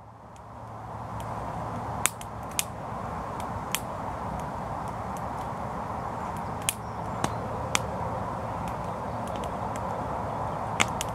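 Wood campfire burning down toward coals: a steady hiss with scattered sharp crackling pops, about half a dozen spread irregularly.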